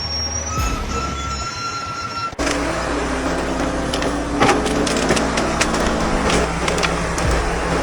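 A motorcycle engine running steadily under a heavy load, starting with an abrupt cut about two seconds in. Steady high tones come before the cut.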